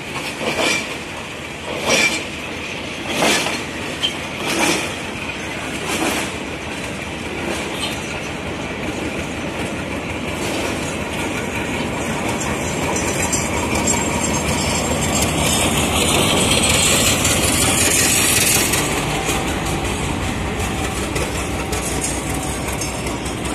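Diesel-electric locomotive running along the track: its wheels clack over the rail joints about every second and a half, then its engine and fan noise swell to a peak as it passes close by, about two-thirds of the way through, and ease off.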